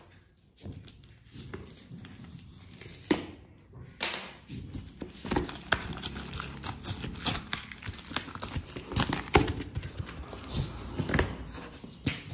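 Plastic packing tape being cut with a knife and peeled off a cardboard box: irregular crackling and ripping with sharp snaps now and then, and cardboard flaps rubbing as they are pulled open.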